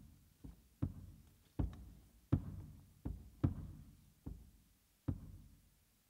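Soft, irregularly spaced percussive knocks, about eight in six seconds, each dying away quickly, struck on the duo's drum set during a sparse passage of the piece.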